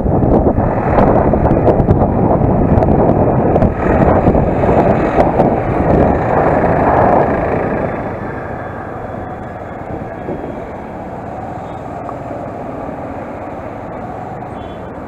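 Motorcycle riding noise: heavy wind rush buffeting a helmet-mounted microphone over the engine, loud at road speed, then dropping off about halfway as the bike slows to a crawl.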